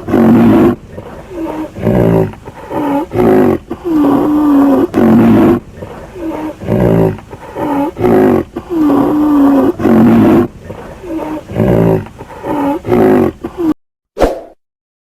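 An animal sound: a loud series of about a dozen roar-like calls, each under a second and bending in pitch, that stops abruptly near the end.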